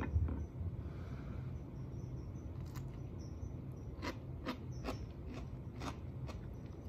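A person chewing crisp green food: a run of sharp crunches, about two or three a second, beginning a little over two and a half seconds in.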